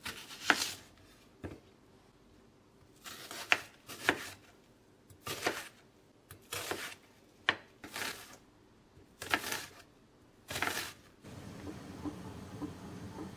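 Chef's knife cutting through a large white onion on a bamboo cutting board: about a dozen crisp, irregularly spaced cuts with quiet gaps between them, stopping shortly before the end.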